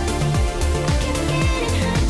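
Electronic background music with a steady kick-drum beat, about two beats a second, under sustained synth layers.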